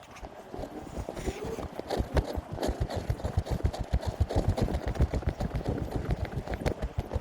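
Footsteps: a quick, even run of low thumps that builds up about a second in.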